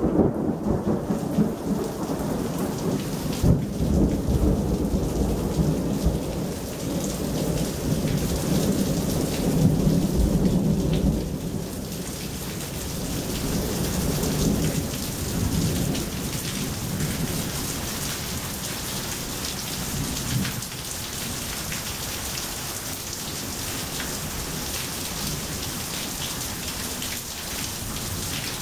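Thunder rumbling over steady rain, with a sharper clap about three and a half seconds in. The rumble dies away after about twelve seconds, leaving rain falling on pavement.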